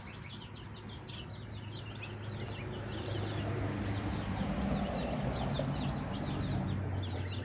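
A group of goslings and ducklings peeping, many short high calls in quick succession. A low steady hum runs underneath, louder in the middle.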